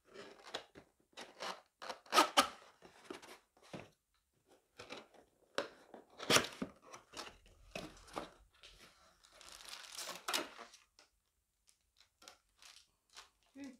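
Plastic packaging crinkling and tearing in irregular bursts, with sharp clicks and rustles as a vacuum-cleaner accessory is unwrapped and handled, and a denser spell of crackling about ten seconds in.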